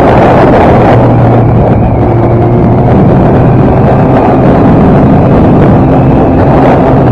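Kawasaki ZX-10R Ninja's inline-four engine running at a steady cruise, with heavy wind buffeting on the microphone.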